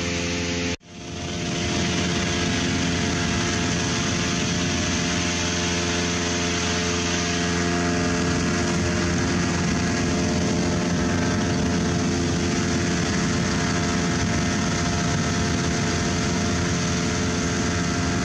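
An engine running steadily at a constant pitch, cutting back in after a brief dropout about a second in.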